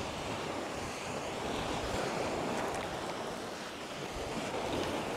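Small waves breaking and washing on the shore, in gentle swells, with wind rumbling on the microphone.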